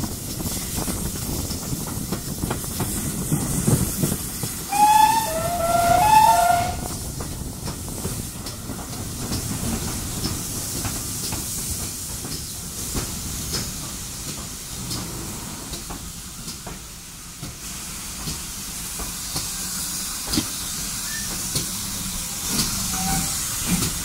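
Heritage railway locomotive running slowly into a station, a steady rumble and hiss with scattered clicks. About five seconds in, its whistle gives two short two-note blasts, high then low, the loudest sound here.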